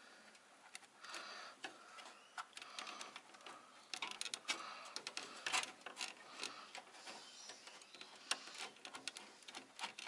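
Faint, irregular small clicks and scrapes of metal and plastic as a graphics card is handled and lined up in a PC case.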